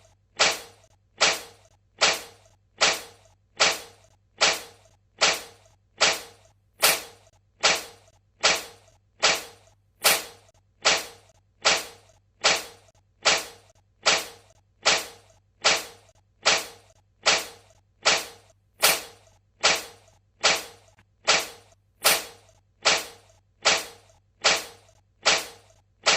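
Cat sneezing over and over: short, sharp sneezes about once a second, evenly spaced.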